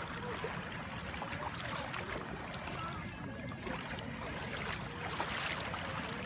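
Shallow sea water lapping and trickling at the shoreline, a steady wash full of small splashy ticks, over a low steady rumble.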